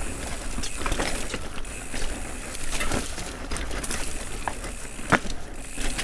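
YT Jeffsy 29 full-suspension mountain bike riding down a dirt singletrack: a steady rush of wind and tyre noise, with the bike rattling and knocking over bumps. One sharp knock about five seconds in is the loudest.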